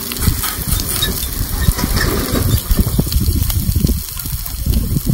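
Steak sizzling on a hot stone slab while a large knife cuts through it, scraping and knocking against the rock, with irregular dull low thumps.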